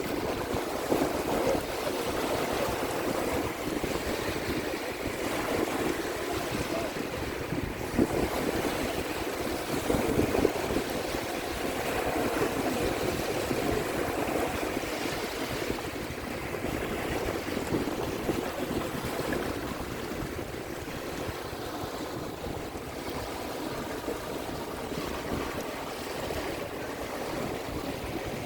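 Small waves lapping steadily at a lake shore, with wind blowing across the microphone. The water swells briefly a couple of times, about 8 and 10 seconds in.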